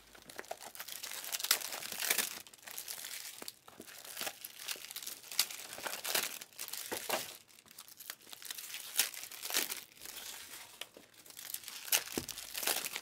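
Trading-card pack wrappers crinkling and tearing as packs are ripped open by hand, in irregular rustling bursts with sharp crackles.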